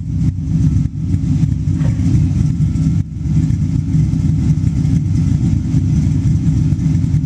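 Exhaust of a carbureted 6.0-litre LQ9 V8 running through an X-pipe and Flowmaster Delta Force race mufflers, idling with a deep, choppy, uneven note.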